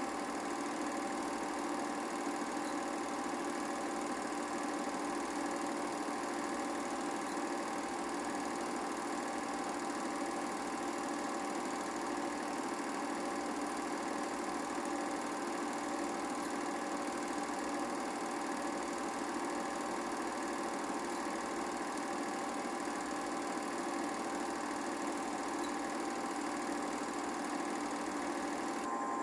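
8mm film projector running, a steady mechanical hum of several constant tones that does not change.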